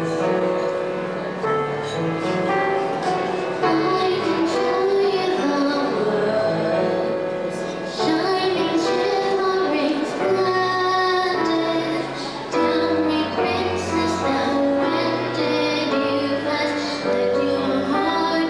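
A young girl singing a song into a handheld microphone over instrumental accompaniment.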